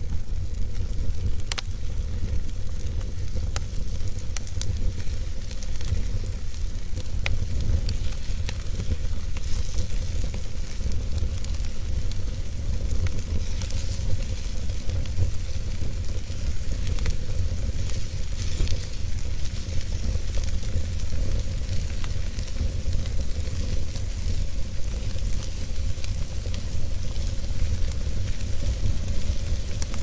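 Wood fire burning in a fireplace: a steady low rumble and hiss of the flames, with scattered sharp crackles and pops from the burning logs.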